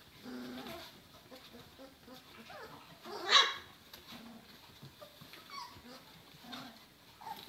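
German shorthaired pointer puppies whimpering and yipping in a string of short, high calls, with one much louder yelp about three seconds in.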